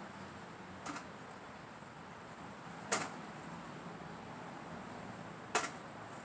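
Three short, sharp sounds from practice weapons being handled and swung during sword drills: one faint about a second in, then two louder ones about two and a half seconds apart.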